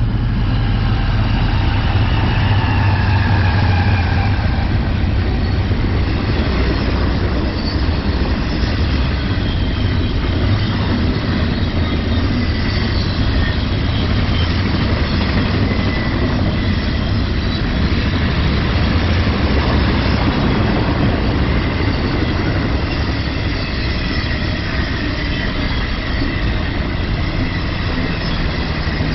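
Union Pacific intermodal freight train passing close by. Its diesel locomotives run loudest in the first few seconds, then double-stacked container cars roll past with a steady heavy rumble and thin high wheel squeals now and then.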